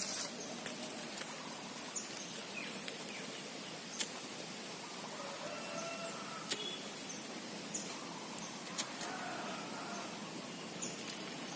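Steady outdoor background noise, with a few sharp clicks scattered through it and several short, high chirps.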